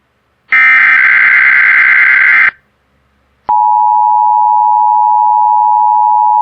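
Emergency alert test signal on a weather radio broadcast. A burst of warbling SAME digital header data runs about two seconds, starting half a second in, then cuts off. After a second of silence a steady alert tone starts about three and a half seconds in and holds. This is the opening of a Required Weekly Test.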